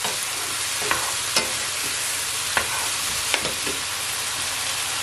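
Mushrooms and diced vegetables sizzling steadily in hot oil in a frying pan, while a wooden spoon stirs them, knocking and scraping against the pan in a few short sharp clicks.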